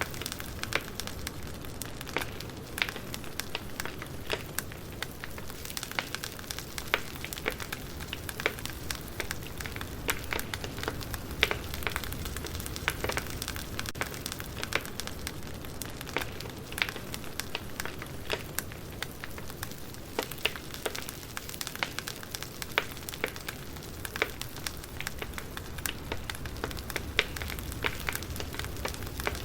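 Campfire burning: wood crackling and popping in irregular sharp snaps, several a second, over a steady low hiss of the flames.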